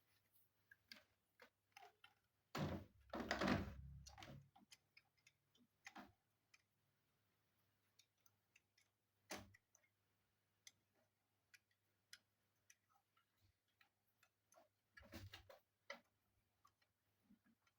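Faint scattered clicks and taps of hands working on a computer's parts, with a louder handling knock about three seconds in and another near the end.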